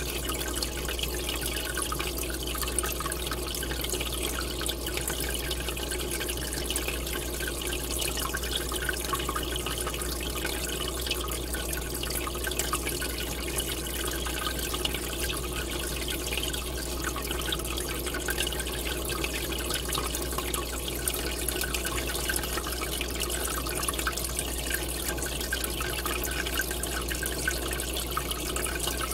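Aquarium water pouring in from the tank's return outlet, splashing and trickling steadily, with a steady low hum underneath.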